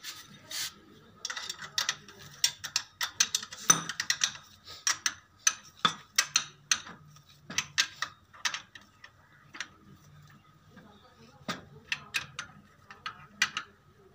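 Socket wrench tightening the nuts on a steel motor-mount bracket: a run of quick metallic clicks and clinks, close together for the first few seconds, then sparser.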